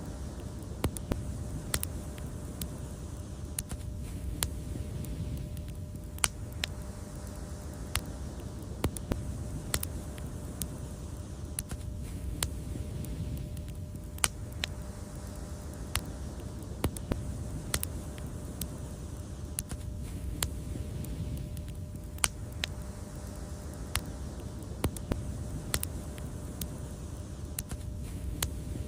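Wood fire crackling: frequent irregular sharp pops and snaps over a steady low rumble of burning.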